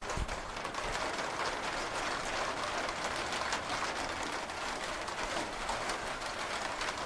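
Intense rain shower: a steady, dense hiss of heavy rainfall, full of fine drop patter and splashes.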